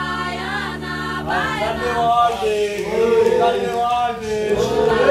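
Music: several voices chanting or singing together over a steady low drone, the voices growing louder about two seconds in.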